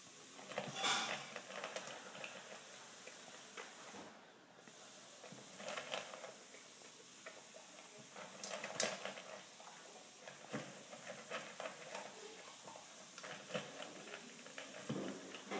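Standard poodle eating dry kibble from a metal bowl: irregular crunching and clicking of kibble and teeth, coming in clusters. The sound is faint, over a light hiss.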